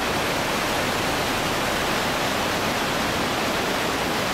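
Underground waterfall and whitewater rushing steadily inside a cave.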